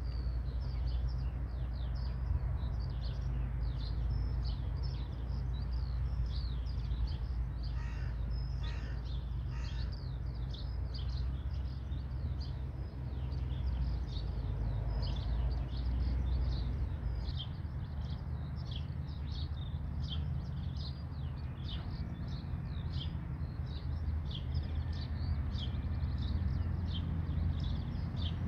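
Distant single-engine light aircraft, a SOCATA TB 10 Tobago, running steadily during its pre-takeoff power check, heard as a low even drone. Birds chirp over it throughout, with a few harsher caws about eight to ten seconds in.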